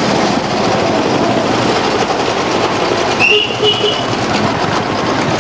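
Royal Enfield single-cylinder motorcycle engines running close by, a dense uneven beat of exhaust thumps. A brief high-pitched tone sounds a little past halfway.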